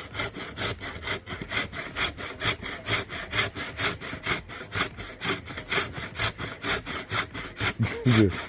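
Hand saw cutting wood in quick, even back-and-forth strokes, about four or five a second.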